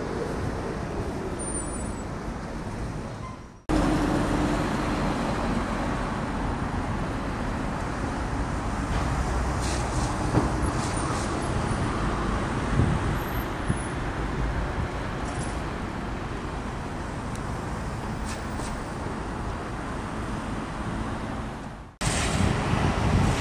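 Steady hum of road traffic heard as city ambience. It drops out briefly about four seconds in and again near the end.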